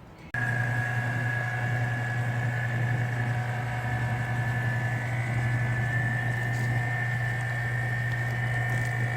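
A machine starts running abruptly about a third of a second in and keeps up a steady, even hum with a faint high whine.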